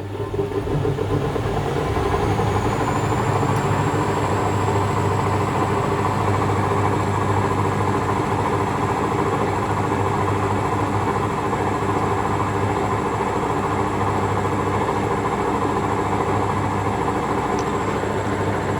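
Hoover Electra 535 Dual Spin washing machine in its final spin: the drum spins up over the first couple of seconds, then runs steadily at its single spin speed. A high motor whine rises and levels off.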